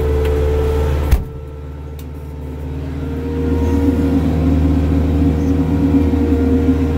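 Kioti RX7320 tractor's four-cylinder diesel engine running steadily, heard from inside the cab. A sharp click comes about a second in, after which the engine sounds quieter for a moment, then builds back to a steady run.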